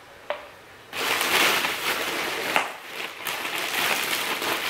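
Thin plastic bags rustling and crinkling as they are handled and rummaged through. It starts about a second in, after a single short click.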